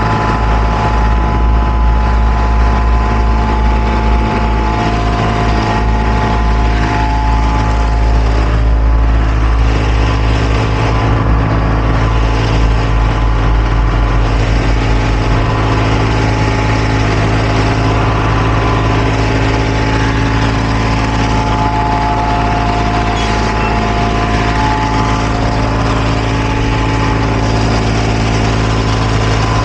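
Heavy paving machinery's engine running steadily, with a deep rumble and a constant hum; the rumble eases about halfway through.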